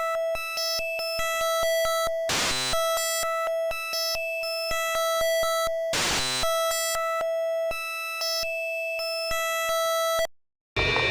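Synthesized electronic alarm-like sound: a steady buzzing tone under shifting higher beeps, with a regular clicking beat and two short noisy swooshes about two and six seconds in. It cuts off suddenly near the end, and a different sound with gliding tones begins just before the close.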